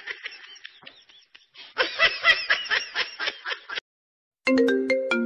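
A person snickering in a quick run of short laughs, then after a brief gap a mobile phone ringtone starts about four and a half seconds in, a melody of stepped notes.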